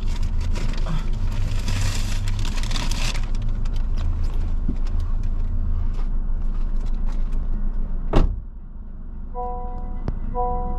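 Car engine idling, heard from inside the cabin, with a rustling hiss over the first few seconds. About eight seconds in comes one sharp thump, and near the end a three-note chime repeats about once a second.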